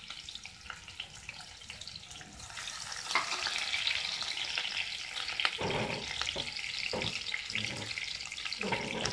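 Chopped onions sizzling in hot oil in a pressure pan, the frying growing louder about three seconds in as a metal spoon starts stirring them.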